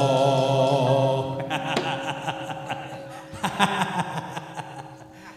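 A man's voice holds the last long note of a Javanese tembang with a wavering vibrato, breaking off about a second in. After that faint steady ringing tones linger and fade under scattered light clicks and a little laughter.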